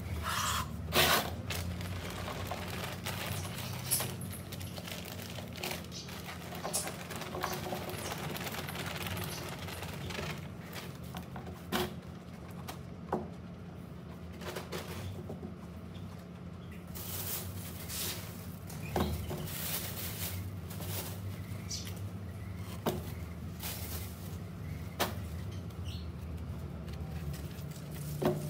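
Gloved hands handling potting soil in a plastic planter: soft rustling with scattered clicks and taps, over a steady low hum.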